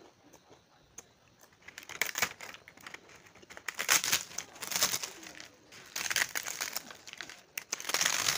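A large sheet of brittle, crispy fried food crackling and snapping as it is broken up by hand on a plate, in uneven bursts that start about two seconds in.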